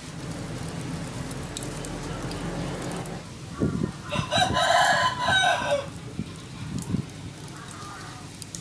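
A rooster crows once, a single call of just under two seconds starting about four seconds in.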